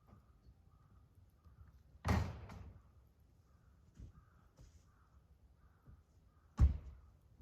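Two sharp, heavy knocks about four and a half seconds apart, each with a brief tail, and a fainter knock between them.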